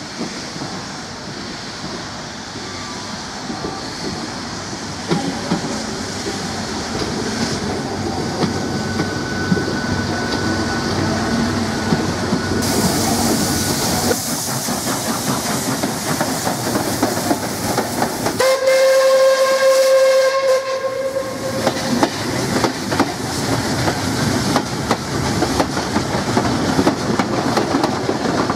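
MÁV class 424 steam locomotive pulling a train: running noise and steam hiss, with a broad burst of hiss about halfway through, then a single steam whistle blast of about three seconds. After the whistle the carriages go by, wheels clicking over rail joints.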